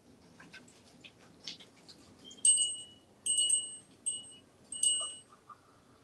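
A small metal bell on a parrot's toy is struck four times, each strike ringing briefly with a bright, high tone, after a few faint taps.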